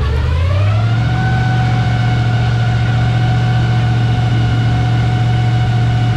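Tour boat's motor speeding up, its whine rising in pitch over the first second and then holding steady over a low hum.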